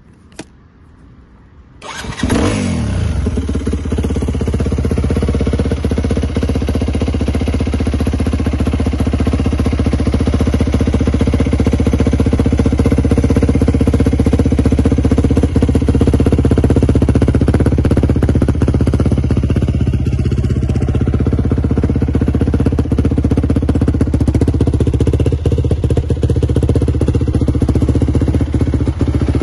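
2012 Yamaha WR250F's single-cylinder four-stroke engine starting about two seconds in, flaring briefly as it catches, then settling into a steady idle. A single short click comes just before.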